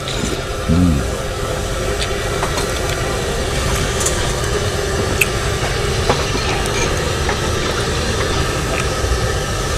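Steady low background noise with no clear pitch, with a short hummed 'mm' from the man eating about a second in and a few light ticks of a utensil against a bowl.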